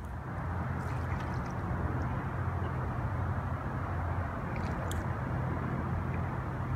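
Steady rush of flowing river water over a low steady rumble, with a few faint ticks about a second in and again near five seconds.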